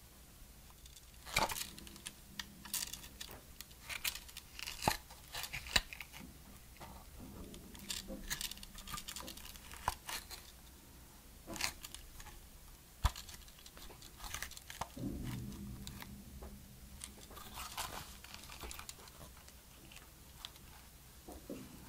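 Cotton-gloved hands handling a Sony A6400 mirrorless camera: fabric rustling against the body, with scattered sharp clicks and taps as the tilting rear screen is swung open and flipped up.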